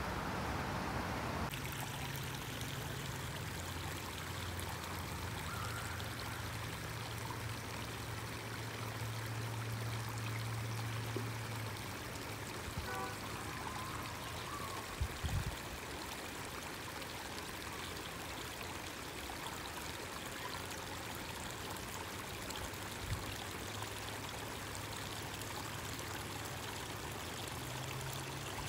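Shallow stream running over rocks and clay, a steady rush and trickle of water.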